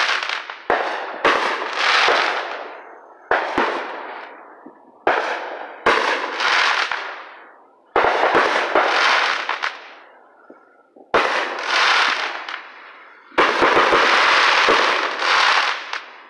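Aerial fireworks bursting one after another, about eight times: each is a sharp bang followed by a dense crackle of glittering stars that fades over a second or two. The last burst, near the end, lasts longest.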